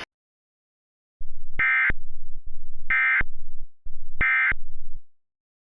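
Emergency Alert System end-of-message signal: three short bursts of SAME digital data tones, each about a third of a second long and spaced about 1.3 s apart, marking the end of the alert.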